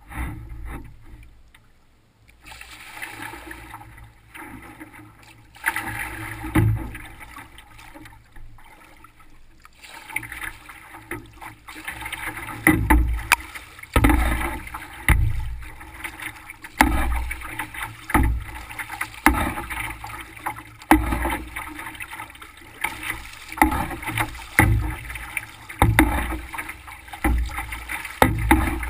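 Canoe hull moving through choppy lake water, with water lapping and slapping against the bow. From about twelve seconds in the slaps grow heavier and come roughly once a second.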